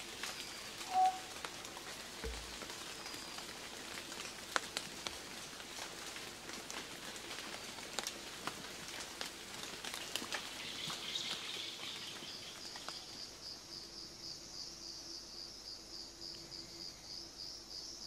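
Tropical rainforest ambience: a faint hiss with scattered sharp ticks and drips, and a brief bird-like note about a second in. Roughly two-thirds of the way through, an insect starts a high, rapidly pulsing trill that keeps going.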